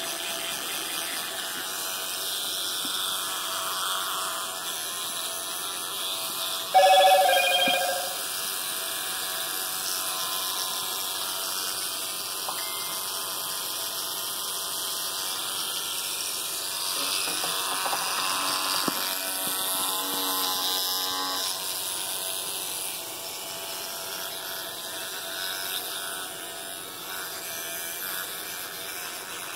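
Battery-powered electric toothbrush buzzing steadily while a capuchin monkey holds it to his mouth. About seven seconds in, a short, loud pitched sound lasting about a second stands out above the buzz.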